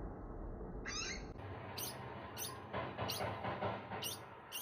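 Pet Octodon degus chirping: a run of about six short, high chirps, roughly one every half second.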